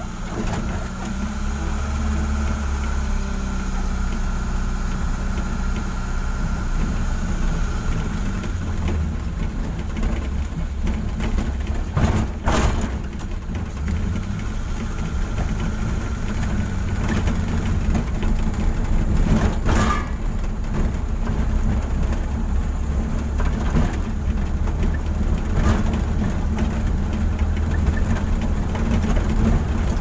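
Car engine running with road noise, heard from inside the cabin while driving. Two brief knocks sound about twelve and twenty seconds in.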